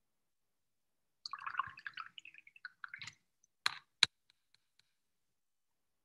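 Watercolor paintbrush being worked in water and paint: a wet, scrabbling swish for about two seconds, then two sharp taps against a hard container, followed by a few faint ticks.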